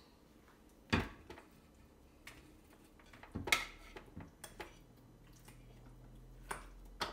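Handling sounds as raw chicken breast pieces are put by hand into a food processor bowl: scattered knocks and light clatters against the appliance, with a sharp knock about a second in and another around the middle.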